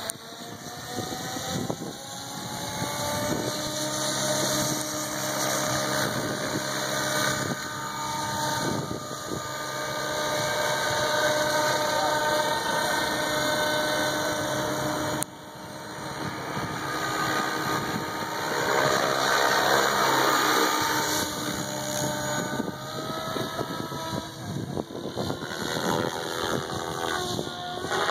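SAB Goblin 700 electric RC helicopter spooling up and flying: the whine of its motor and rotor rises in pitch over the first few seconds. It then runs steadily as it lifts off and hovers, with the pitch shifting again near the end as it climbs away overhead.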